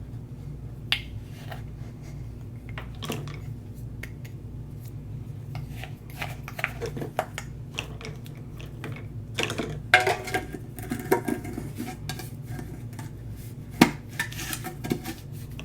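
Cutlery and dishes clinking and clattering in scattered knocks, busier in the second half with the loudest knock near the end, over a steady low hum.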